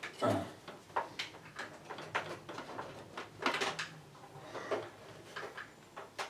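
Rummaging through small hard parts: irregular clicks, knocks and rattles of plastic and metal pieces being picked up and set down, the loudest clatters about a third of a second in and again about three and a half seconds in.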